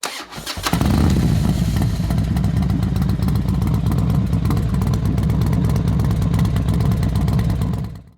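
Harley-Davidson Dyna's V-twin engine: a few clicks, then the engine comes in loud about a second in and runs with a steady low rumble, fading out near the end.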